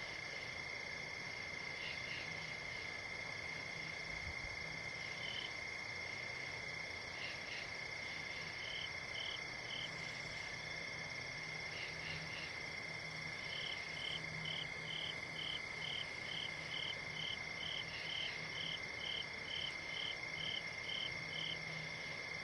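Night chorus of crickets and frogs: a steady, high cricket trill throughout, joined about halfway through by a higher call repeating about twice a second.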